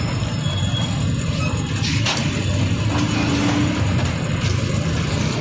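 Parathas frying in oil on a large flat iron griddle, a steady hiss over a loud, constant low rumble, with a metal click about two seconds in.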